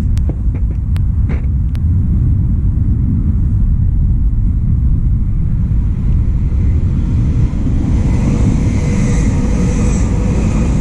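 Steady, heavy low rumble of wind on the microphone, with a few sharp clicks in the first two seconds. An approaching passenger train grows audible over the last few seconds as a rising hiss.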